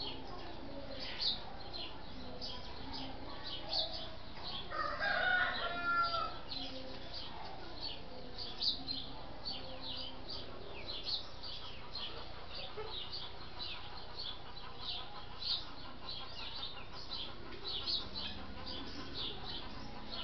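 Small birds chirping in quick, high, short notes all through, with a rooster crowing once about five seconds in.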